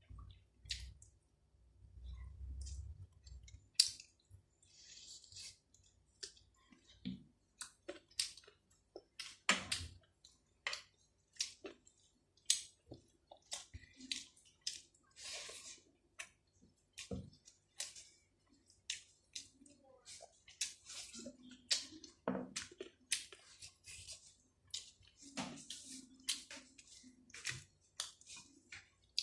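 Close-up eating sounds: wet chewing of rice and chicken curry with frequent irregular lip smacks and mouth clicks.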